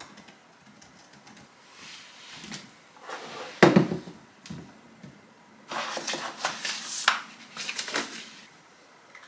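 Desk handling sounds: a single thump about three and a half seconds in, then sheets of printed paper being picked up and rustled for a couple of seconds.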